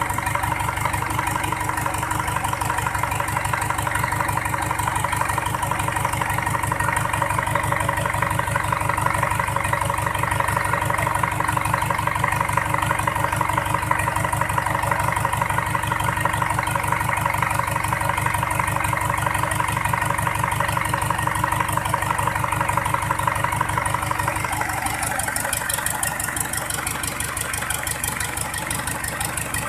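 Freshly rebuilt Mitsubishi PS120 four-cylinder diesel engine idling steadily with an even, rapid beat. A steady whine over it drops away about 24 seconds in.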